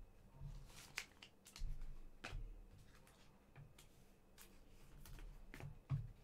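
Panini Mosaic soccer trading cards being handled and slid past one another: faint, scattered rustles and clicks.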